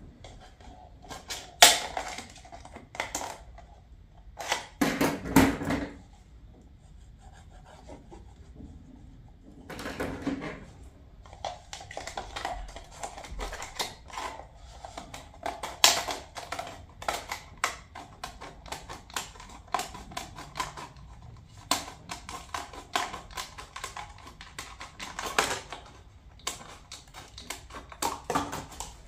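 A cup being cut down to height: a long run of quick, sharp clicks and crackles, with a few louder knocks of handling in the first several seconds.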